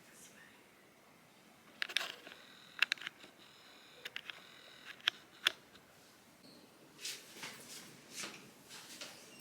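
Quiet handling noises: a cluster of sharp clicks about two seconds in, two more clicks around five seconds, then soft rustling near the end.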